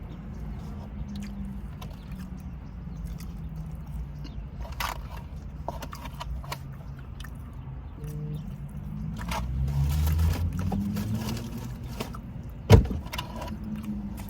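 Car engine idling with a steady low hum, under scattered small clicks and rustles of eating from takeout containers. A sharp knock comes near the end.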